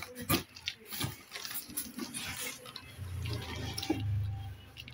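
Hands handling and turning a cardboard box of a stand fan: a few knocks and taps in the first second, then rubbing and scraping of cardboard with a low rumble near the end as the box is shifted.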